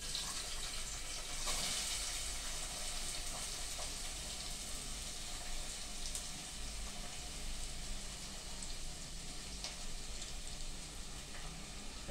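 Chopped onions sizzling as they go into hot oil in a pot: a steady frying hiss that gets a little louder about a second and a half in.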